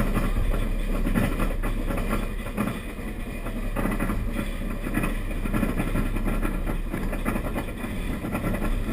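Steel roller coaster train running along the track mid-ride, a steady rumble of wheels on rail.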